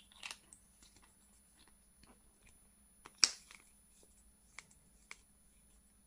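Hand-handling clicks as the Wurkkos TS10 Max's aluminium battery tube is screwed together with its battery inside: a few small ticks and one sharper click about three seconds in.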